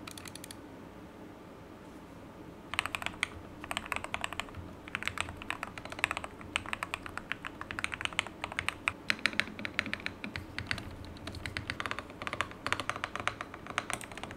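Typing on a modded MMD87 mechanical keyboard with lubed Akko Rose Red linear switches, foam dampening and XDA PBT keycaps. The keystrokes come in quick runs of clicky-clacky strokes with short pauses, starting a few seconds in.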